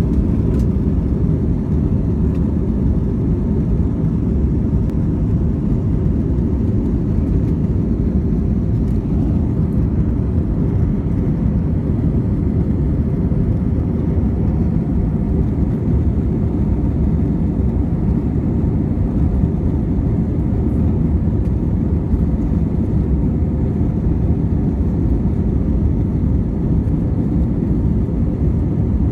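Airbus A321 jet engines at take-off thrust, heard inside the passenger cabin as a steady low roar.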